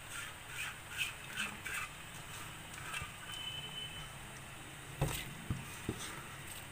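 Faint cooking sounds from a pot of rice in ghee and masala liquid: a run of short soft pops over the first two seconds, then a knock about five seconds in, followed by two lighter clicks.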